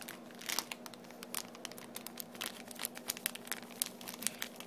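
A hand kneading mashed boiled potato with spice powder in a stainless steel bowl: irregular, quick crackly clicks and squelches, over a faint steady low hum.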